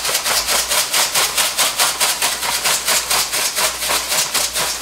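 Hand-twisted salt grinder grinding salt into a pot of soup. It makes a gritty rasp that pulses about five times a second with each twist.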